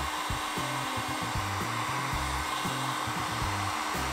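Electric heat gun blowing hot air steadily onto dried wood glue on a steel clamp bar, softening the glue so it can be scraped off.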